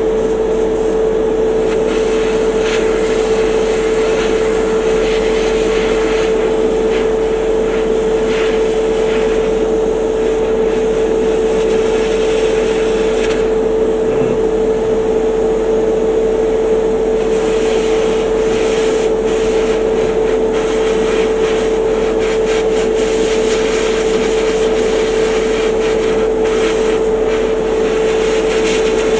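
A small electric motor running steadily: a constant hum with one unchanging tone over a even whirr, with a few faint clicks of handling.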